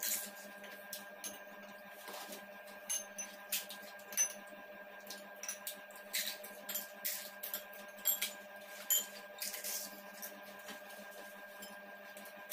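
Crisp gol gappa (pani puri) shells being cracked open, filled and eaten: an irregular scatter of short crunches, crackles and clicks, over a steady faint background hum.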